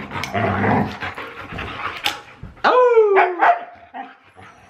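Huskies play-fighting and vocalizing: low growly rumbling in the first second, short yips and barks, and one loud drawn-out call about three seconds in that slides down in pitch, like a husky's 'woo'.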